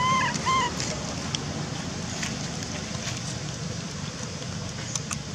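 Baby macaque giving two short, arched coo calls in quick succession right at the start, over a steady background hiss with a few faint clicks.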